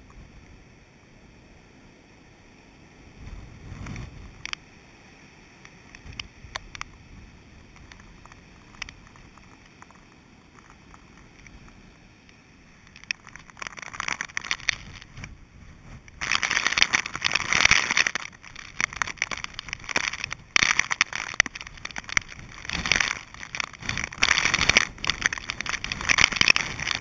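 Storm wind and rain buffeting a GoPro's waterproof housing. The first half is a faint, muffled rush with a few low thumps; about halfway through it builds into loud, dense crackling as gusts drive rain against the case.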